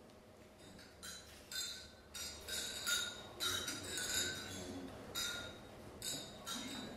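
Champagne glasses clinking together in a toast, clink after clink with brief ringing tones, starting about a second in and going on until near the end.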